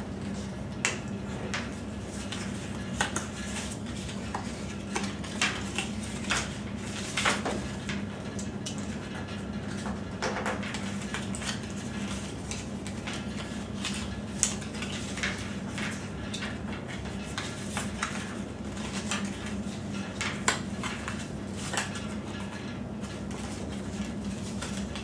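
A paper flexagon net being creased back and forth along each fold line by hand on a tabletop: irregular crackles, clicks and taps of paper and fingers, over a steady low hum.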